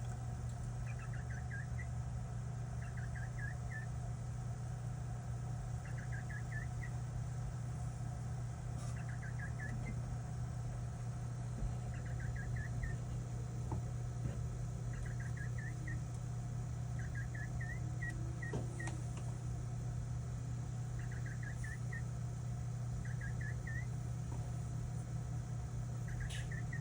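Desktop PC giving off short bursts of high chirps, three to five quick rising chirps in each burst, repeating at uneven gaps of one to three seconds over a steady low hum. The owner takes the chirping to come from the computer.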